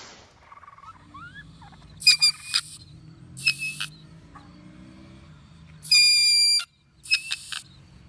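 A caged weasel shrieking: four loud, very high-pitched screeches, the third and longest lasting under a second.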